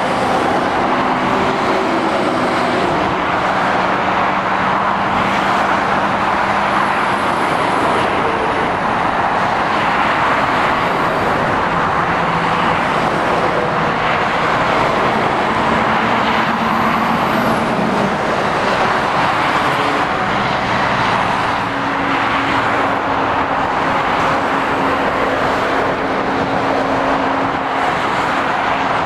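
Steady traffic noise of lorries and cars passing on a dual carriageway: continuous tyre noise with the low drone of the lorries' diesel engines running under it.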